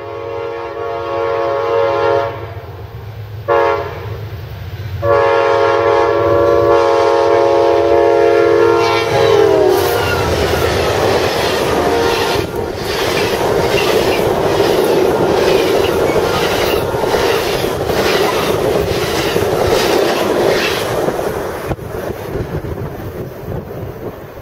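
Amtrak P42DC locomotives' Nathan K5LA five-chime air horn sounds a long blast, a short blast and a second long blast, dropping in pitch as the locomotives pass about nine seconds in. The bilevel passenger cars then rush by with regular clicking of wheels over the rail joints, fading toward the end.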